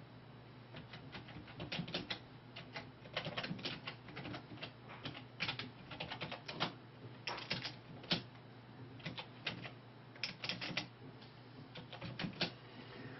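Computer keyboard being typed on: short sharp key clicks in irregular bursts and pauses, as text in a title field is deleted and retyped.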